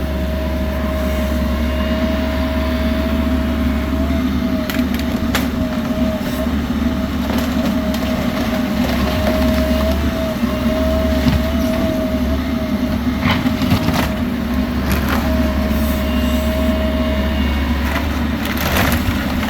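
Bobcat E85 excavator running steadily with a wavering hydraulic whine while it tears apart the timber and siding of a manufactured home. Wood cracks and splinters, with sharp snaps now and then and a quick cluster of them near the end.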